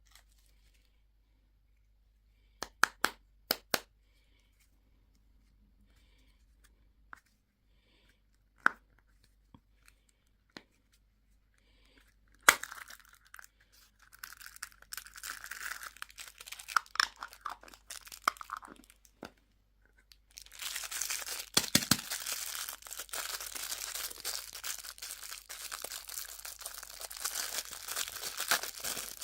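Candy wrapping being torn open and crinkled. A few sharp clicks come first, then a sharp crack about twelve seconds in, then patchy tearing and crinkling that becomes dense and continuous from about twenty seconds in.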